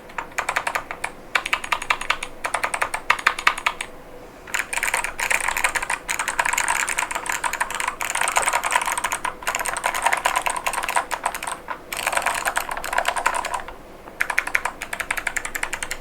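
Mechanical keyboard being typed on fast: an Epomaker Tide75 with Kailh White Owl V2 switches and full-metal keycaps, a dense run of keystroke clacks broken by a few short pauses.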